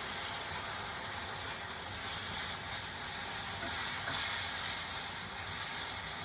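Sliced peaches sizzling steadily in bubbling butter and brown-sugar caramel in a hot cast iron skillet, an even hiss that does not let up.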